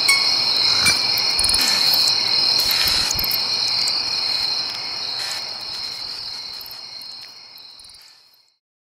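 A steady high-pitched trill like crickets, with a few faint clinks, fading out and ending in silence about eight and a half seconds in.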